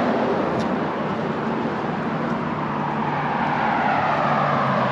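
Road traffic: a vehicle driving past on the street, steady tyre and engine noise with a low hum that drops slightly in pitch about halfway through as it goes by.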